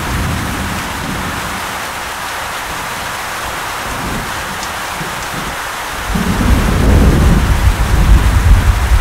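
Rain falling steadily in a tropical thunderstorm, with thunder rumbling. A deep rumble of thunder rolls in about six seconds in and gets louder.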